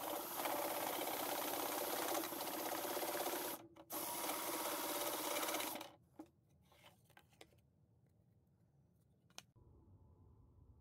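Sewing machine converted into a jigsaw, its reciprocating saw blade cutting through a thin board with a fast, even chatter. The cutting pauses briefly about three and a half seconds in, runs again, and stops just before six seconds, leaving a few light clicks.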